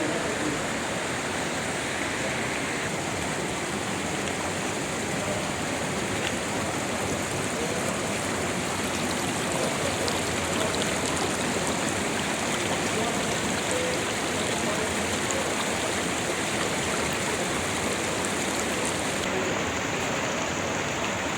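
A fast mountain stream rushing over rocks close to its spring, a steady, even rush of water.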